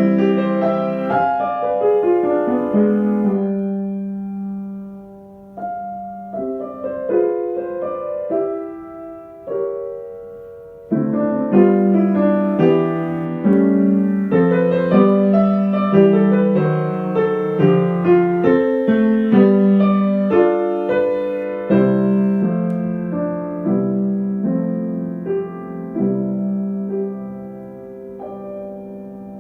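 Solo piano playing a slow melodic piece, notes struck and left to ring. It thins out and softens around four seconds in, picks up strongly again about eleven seconds in, and ends on a held chord dying away.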